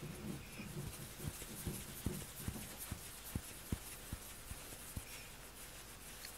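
Faint rubbing and scratching of fingers in a black cat's fur, with soft low knocks scattered through it.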